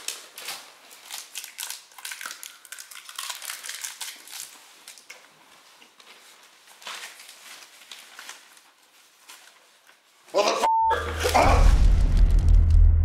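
Newspaper pages rustling and crinkling in small dense crackles for about ten seconds. Then comes a short beep, and after it a much louder booming sound with heavy deep bass begins.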